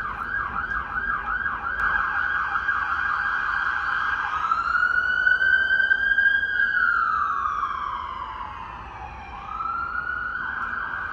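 Emergency vehicle siren sounding in a fast yelp that switches about four seconds in to a slow wail, rising, falling and rising again.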